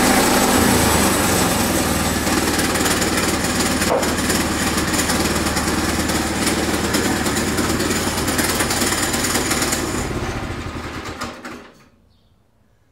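Sawmill running steadily, then winding down and stopping about eleven to twelve seconds in.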